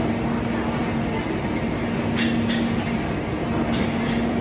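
Steady background din of a busy hawker centre: a constant hum with a low steady tone, and a few short clicks about halfway through.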